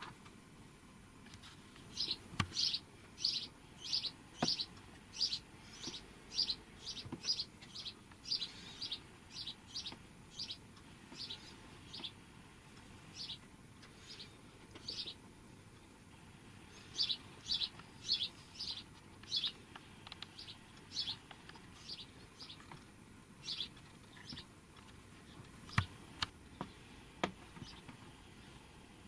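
A small bird chirping in quick runs of short, high notes, about two or three a second, with a brief pause about halfway through. A few faint clicks are heard between the chirps.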